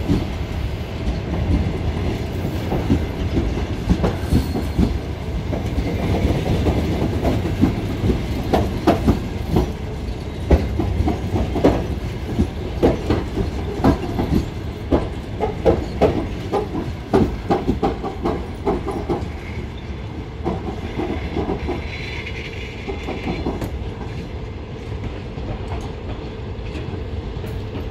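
Wheels of a departing passenger train's coaches clattering over rail joints under a steady rumble as the train pulls away. The clicks come thick and irregular through the middle and thin out as the sound slowly fades near the end.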